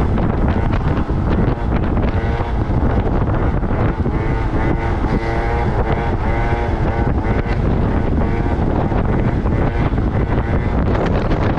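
Small two-stroke moped engine running at high revs, its pitch wavering up and down with the throttle, with wind buffeting the helmet microphone.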